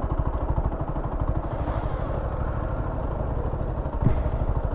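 125 cc motorcycle engine running steadily at low speed as the bike pulls in to stop, with a single click about four seconds in.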